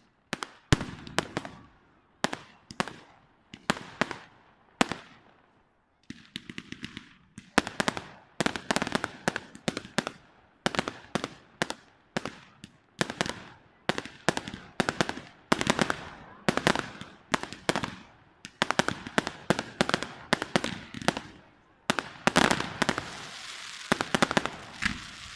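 Aerial fireworks shells bursting in a long series of sharp bangs, about one a second at first, then coming thick and fast, with a dense continuous crackle near the end.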